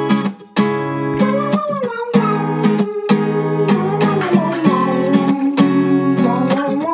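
Background music: strummed acoustic guitar keeping a steady pulse, with a wavering melody line over it.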